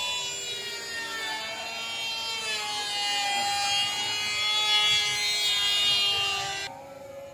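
Woodworking power tool running with a high, whining tone whose pitch wavers as it works, stopping abruptly near the end.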